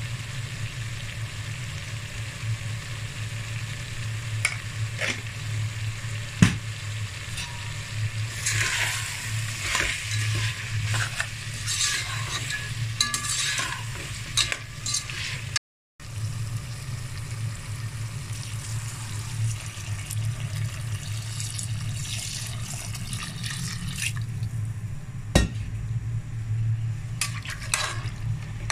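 A perforated metal spoon stirring and scraping prawns and vegetables in a metal pot as they sizzle, with a few sharp clinks of the spoon against the pot. A steady low hum runs underneath.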